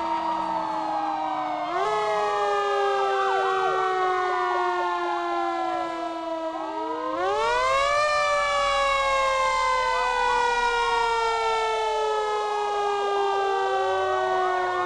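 Several police sirens wailing at once. Long tones slide slowly down in pitch and jump back up twice, about two and seven seconds in, while other wails rise and fall across them.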